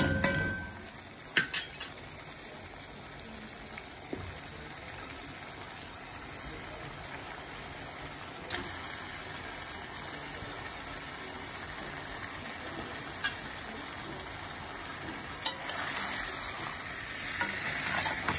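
Taro root and chicken pieces frying in onion-masala gravy in a stainless steel pot: a steady sizzle, with a spoon clinking sharply against the pot a few times and louder stirring near the end.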